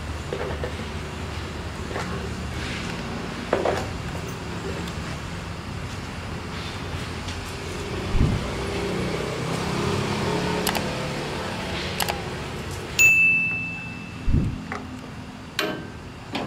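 Small metallic clicks and taps from a wire seal being threaded and twisted through the drilled bolts of a flow meter's register, over a steady low background rumble. About 13 seconds in comes one short, bright metallic ding.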